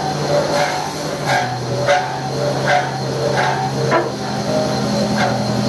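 Background music with held low notes that change about a second in, and a regular beat of about one and a half hits a second.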